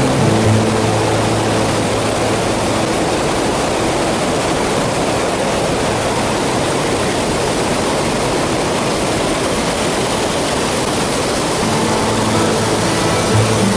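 Steady loud rush of a mountain stream's flowing water. Background music with held notes fades out in the first second or two and comes back near the end.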